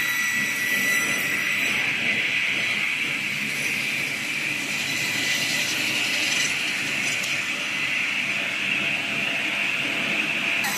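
Woodworking machine running steadily: a continuous high whine over an even hissing noise.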